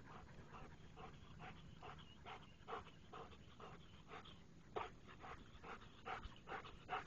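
A dog panting quickly and faintly, about three to four breaths a second, with a few sharper, louder breaths.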